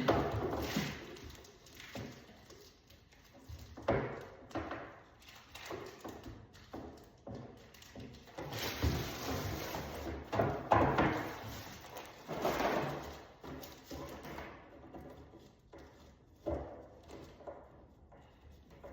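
Irregular knocks, thuds and scraping handling noises, with louder clusters about four seconds in, in the middle and near the end.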